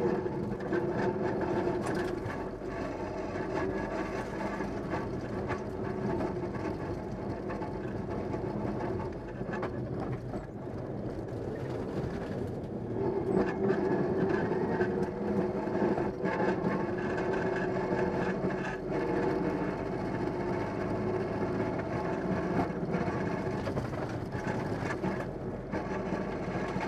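Mitsubishi Lancer Evolution VI rally car heard from inside the cabin, its engine running hard at speed with drivetrain and gravel road noise; the sound eases briefly before halfway, then comes back at its loudest.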